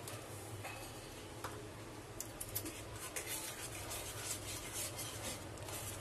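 A metal spoon scraping and clicking against a metal kadhai while milk powder is stirred into milk and ghee. The clicks and scrapes are irregular and start about two seconds in, over a faint low steady hum.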